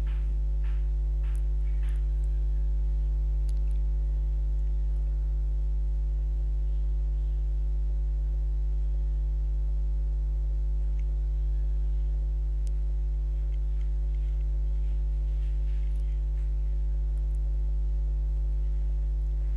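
Steady electrical mains hum with a buzz of higher overtones, unchanging throughout.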